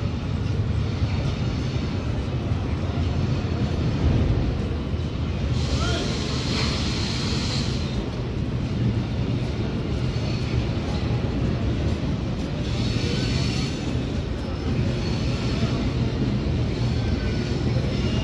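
Diesel locomotive engine running with a steady low drone as it approaches hauling a passenger train, with two spells of high hissing about six and thirteen seconds in.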